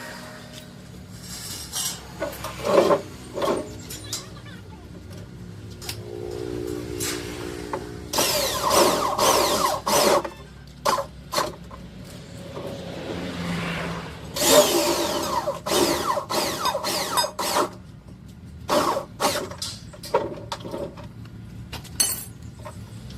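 Metal fabrication work on a steel frame: irregular knocks and clanks with short bursts of power-tool noise.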